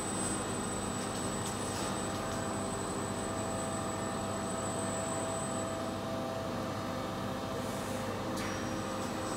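Steady hum of running industrial machinery in a robot-served CNC machining cell, with several steady tones layered in the noise. A faint high whine stops about six seconds in.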